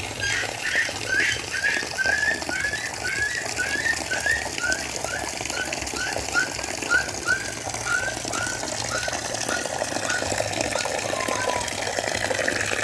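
A bird calling a long series of short whistled notes, about three a second, slowly falling in pitch and fading out about ten seconds in. Underneath, water sloshes and splashes as hands wash taro leaves and stalks in a basin.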